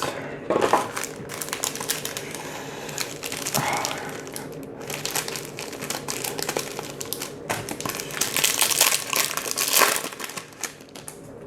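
Foil wrappers of Yu-Gi-Oh booster packs crinkling as the packs are handled and opened, in an irregular run of crackles and rustles.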